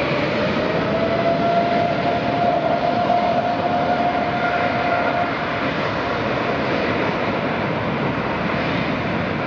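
Turbofan engines of a STARLUX Airbus A330neo running as the airliner rolls along the runway: a steady rushing jet noise with a single whine that holds its pitch and fades out about five seconds in.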